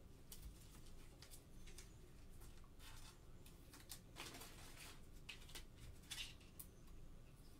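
Faint rustling and sliding of plastic as trading cards are handled and slid into soft sleeves and a rigid toploader, with a longer swish about four seconds in.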